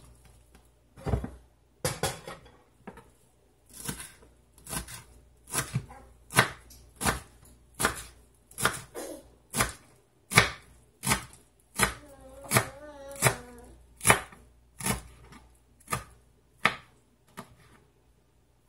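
Kitchen knife chopping cilantro on a plastic cutting board: a steady series of sharp knocks, a little more than one stroke a second, starting about a second in and stopping shortly before the end.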